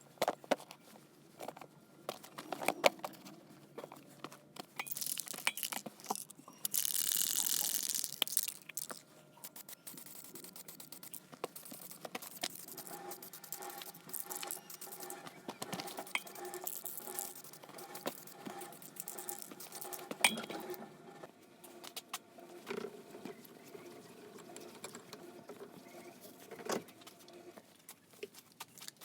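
Scattered light clicks, taps and clinks of small metal parts being handled, with a short hiss about seven seconds in.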